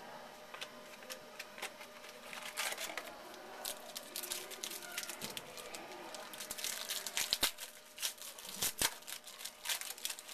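Foil trading card pack wrapper crinkling and tearing as it is opened by hand, an irregular crackle that grows much busier after a couple of seconds.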